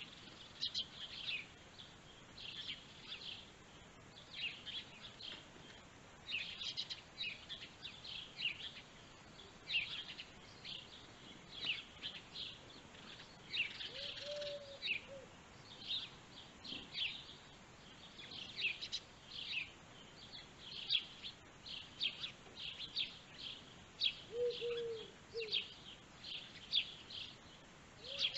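Small songbirds chirping over and over in quick short notes, with a few short low calls breaking in about halfway through and again near the end.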